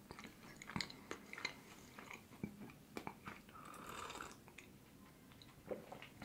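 Faint close-miked chewing of a chocolate-covered date with a nut inside: small wet mouth clicks and smacks. About three and a half seconds in comes a short sip from a cup.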